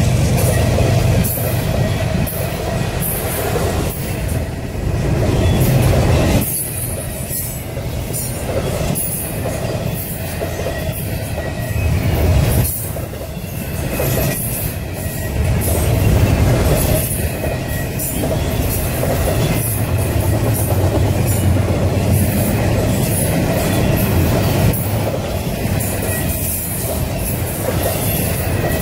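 Freight cars of a passing intermodal train rolling by at close range: the steady rumble of steel wheels on rail, easing briefly twice.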